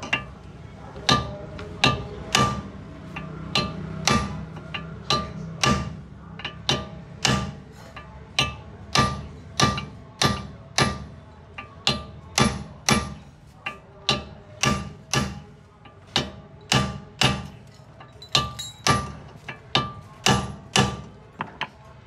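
Steel hammer repeatedly striking a second hammer held against a car's brake disc hub, a little under two metallic clanks a second, each with a short ring, to drive the oiled, stuck brake disc off the hub.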